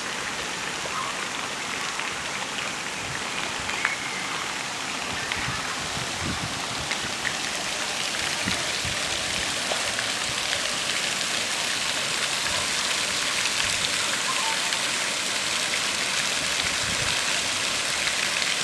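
Steady hiss of rushing or falling water, slowly growing a little louder, with a few faint ticks.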